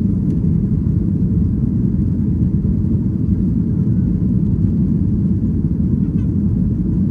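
Steady low rumble of a jet airliner's engines and rushing air, heard from inside the passenger cabin in flight.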